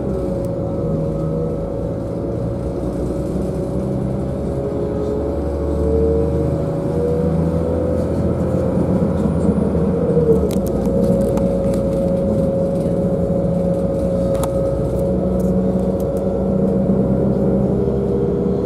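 Modern passenger multiple-unit train running at speed, heard from inside the carriage: a steady rumble from the wheels on the track, with a droning motor note underneath.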